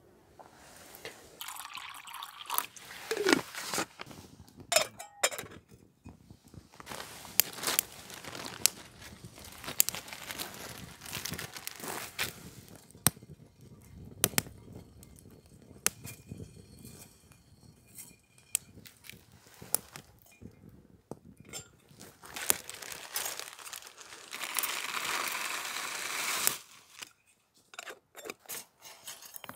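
Irregular crackles, clicks and metal clinks as a kindling fire is lit in a folding steel twig stove and a small cooking pot is handled on and off it. A steady rushing sound lasting about two seconds comes near the end, the loudest part.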